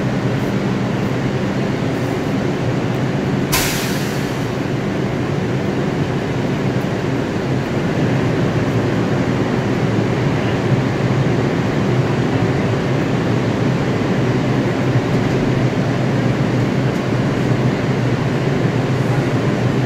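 A New York City Subway 2 train (R142 car) stands in the station with its onboard equipment humming steadily. About three and a half seconds in there is a brief hiss of released air.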